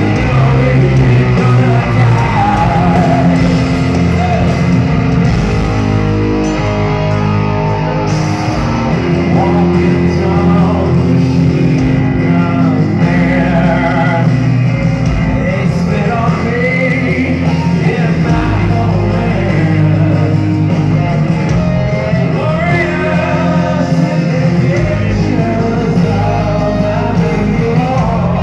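Rock band playing live through a concert PA: electric guitars and drums with sung vocals, loud and without a break, heard from the audience in a large hall.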